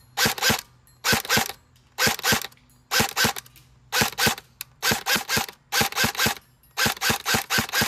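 Stock airsoft SCAR-L electric gun firing on semi-auto, each shot a sharp gearbox cycle with a motor whir. The shots come in quick pairs about once a second, with a faster string of shots near the end. The stock motor cycles sluggishly on a 7.4 V LiPo battery.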